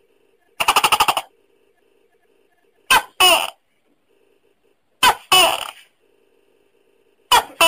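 Tokay gecko calling. A quick rattling chuckle comes about half a second in, then three two-part "to-kay" calls about two seconds apart, each a short note followed by a longer note that falls in pitch.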